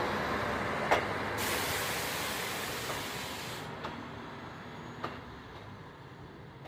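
Train moving away, its rumble fading steadily, with a few sharp clacks of wheels over rail joints. A burst of hiss starts about a second and a half in and cuts off about two seconds later.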